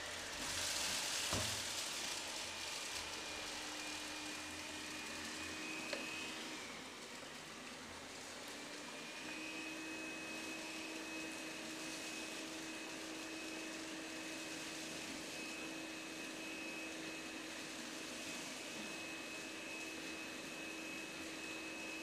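Veniibot N1 robot vacuum running: a steady suction hiss with a thin motor whine over it. The whine drops out around six seconds in and comes back steady a few seconds later, and there is a louder rush with a click about a second in.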